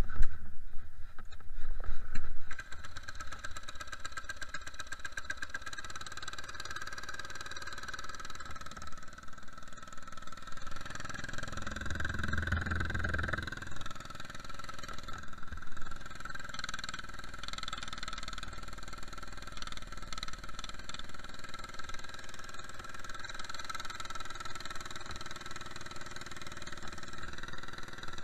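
Small single-cylinder go-kart engine running steadily, revving up briefly about twelve seconds in. Loud knocks come in the first two seconds.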